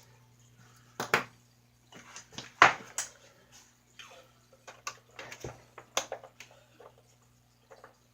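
Irregular clicks and knocks of small plastic toy-snowmobile parts and screws being handled and fitted together, the sharpest knocks about a second in and near the three-second mark.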